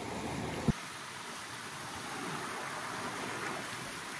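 Shallow river rapids rushing steadily, a constant watery hiss. A sharp click a little under a second in, where the background changes abruptly.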